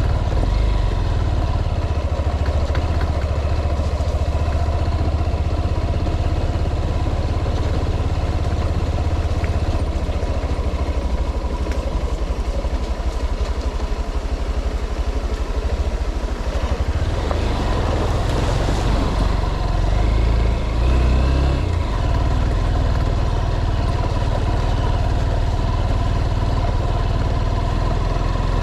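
A motor vehicle running steadily with a heavy low rumble, with a steady hum on top.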